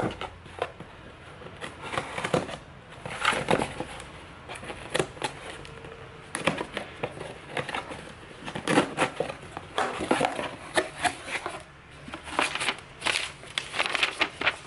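A small blade slitting the packing tape along a cardboard box's seam, then the cardboard flaps pulled open: an uneven run of short scraping, crackling and rustling strokes.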